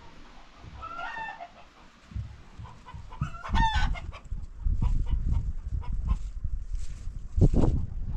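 Rooster crowing twice, a short call about a second in and a longer, louder one around the middle. Under it is a gusty low rumble that is loudest near the end.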